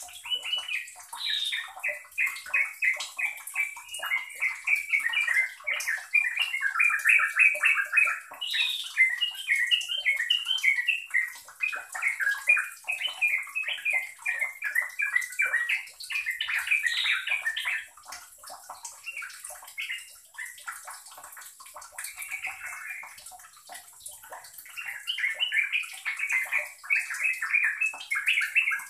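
Yellow-vented bulbul (trucukan) singing a fast, bubbling chatter of short notes strung tightly together. It eases off for a few seconds past the middle and comes back loud near the end.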